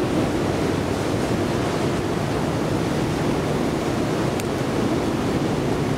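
Escalator running under a rider, heard as a steady, even rumble with no distinct rhythm. There is one faint click about four and a half seconds in.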